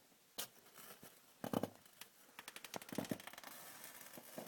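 Freezer making cracking and popping noises: a few separate sharp cracks, then a fast, irregular run of clicks from about two and a half seconds in.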